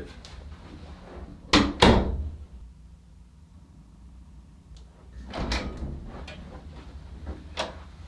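A hinged interior door is pulled shut, closing with two sharp knocks of the latch and the door against its frame about a second and a half in. About three and a half seconds later the handle and latch clatter as the door is opened again, and a single click follows near the end.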